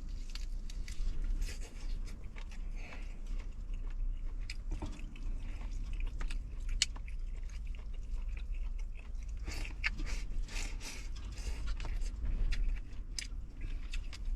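A person chewing and biting chicken close to the microphone: many short, irregular smacks and crunches over a low steady hum.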